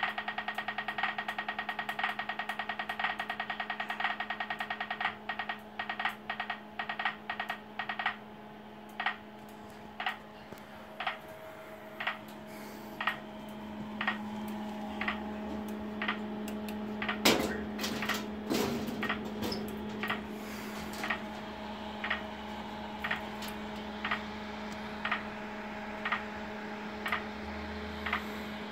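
Acoustic pedestrian signal tickers for blind people on a Siemens MS5 traffic signal controller: rapid ticking for the walk phase, which slows about five seconds in to an even tick about once a second, the wait tick for red. A steady low hum runs underneath, and a few loud knocks and rattles come about two-thirds of the way through.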